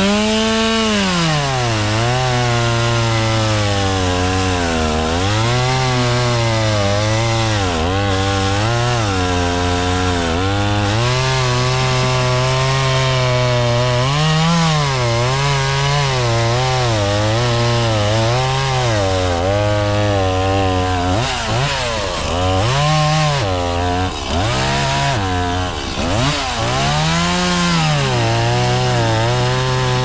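Two-stroke chainsaw cutting wood under load, its engine pitch repeatedly sagging as the chain bites and rising again as it frees up.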